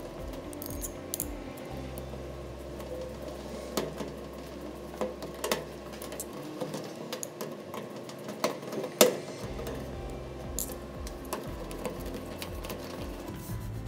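Screwdriver and wires being worked at an electric range's terminal block: scattered sharp clicks and taps of the screwdriver tip on the terminal screws, with the loudest click about nine seconds in, over a steady low hum.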